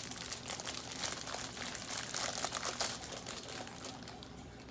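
Plastic snack wrapper crinkling and rustling as it is handled and opened, the crackle dying down near the end.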